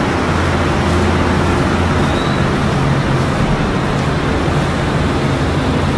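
Cold-store refrigeration running: the steady rushing noise of ceiling evaporator fans, with a low hum underneath.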